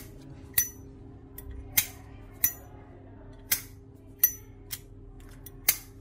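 Solid-brass Zippo Armor lighter with a thick case, its lid flicked open and snapped shut again and again. It gives about half a dozen sharp metallic clicks, several with a short bright ring, as a test of its characteristic opening and closing sound.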